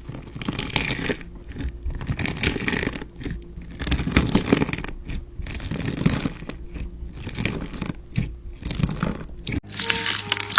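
Crunchy slime being squeezed and worked by hand, giving a dense, irregular run of crackles and crunches.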